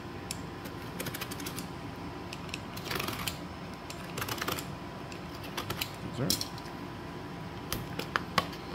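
Utility knife slitting the plastic shrink wrap on a cardboard firework cake, then fingers picking at and peeling the wrap: an irregular scatter of small clicks, scratches and crinkles.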